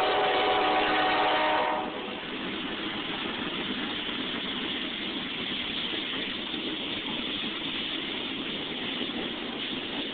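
Norfolk Southern freight locomotive's horn sounding a steady chord that cuts off about two seconds in. After it, the steady noise of freight cars rolling past on the track.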